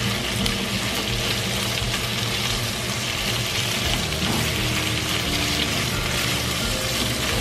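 Cucumber slices sizzling steadily in hot oil in a nonstick frying pan on high heat, an even hiss of stir-frying, over background music.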